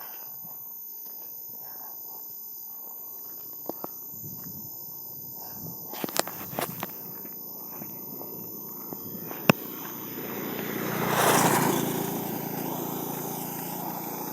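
Outdoor ambience with a steady high hiss and a few sharp clicks, and a broad swell of noise that rises and fades about ten to thirteen seconds in.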